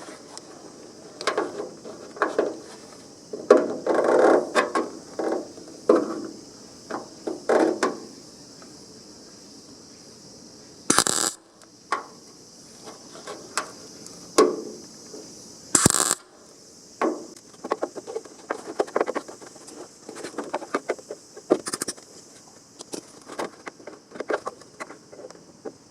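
Metal tools and parts clinking and clattering irregularly during bodywork on a car panel, with two short loud hisses near the middle.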